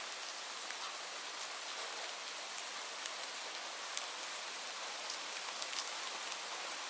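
Steady rain falling on leaves: an even hiss with many separate drops ticking sharply on the foliage.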